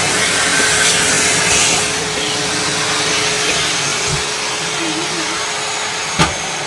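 Vacuum cleaner running steadily: a continuous rushing of air with a steady motor whine. A single sharp knock comes about six seconds in.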